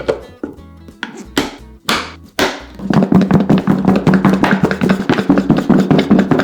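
Kitchen food-preparation noise over background music: a few sharp knocks in the first couple of seconds, then a fast, dense clatter that starts about three seconds in and is the loudest sound.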